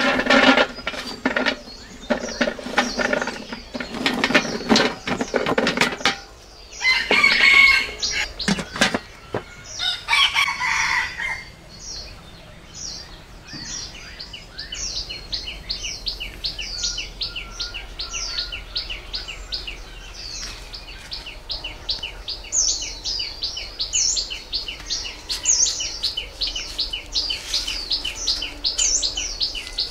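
Village chickens: a rooster crowing twice in the first half, among clucking and rustling, then a small bird chirping steadily, about three short high chirps a second.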